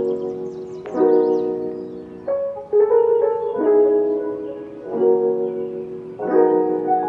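Background music: a mellow piano-keyboard piece of held chords, a new chord struck about every second and a half and fading before the next.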